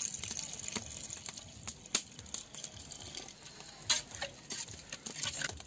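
Water poured from a plastic jug into a large metal pot of seasoned goat meat, the pouring heard through about the first second, then the meat being mixed by hand in the pot, with scattered sharp clicks and knocks.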